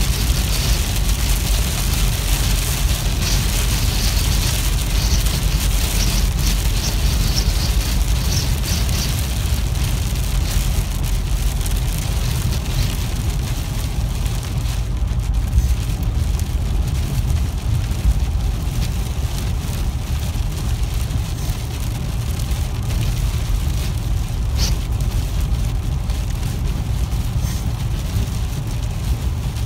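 Steady low road and tyre rumble inside a moving car, with rain hitting the windshield and body. The rain spatter is heavier for the first ten seconds or so, then eases.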